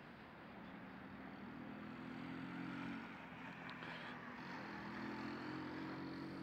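A motor vehicle's engine running, a faint low drone that swells twice.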